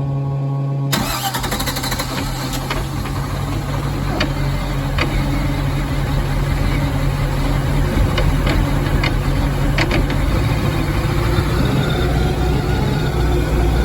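A Chevrolet Malibu's engine is started about a second in, after a steady hum, and then idles roughly, with occasional sharp ticks.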